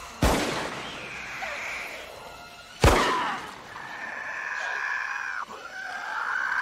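Two loud rifle shots from a scoped bolt-action rifle, about two and a half seconds apart, each with a ringing tail. From about halfway through, a long high screech holds steady, breaking off briefly once near the end.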